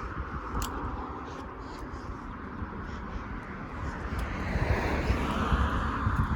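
Car driving: a steady low engine and road rumble with an even hiss of road and wind noise, fading a little mid-way and swelling again near the end.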